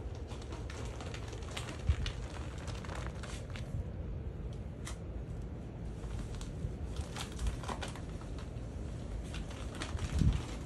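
Crinkling and rustling of a ferret's flexible play tube as a ferret moves through it, with scattered small clicks. There is a sharp knock about two seconds in and a stronger low thump near the end.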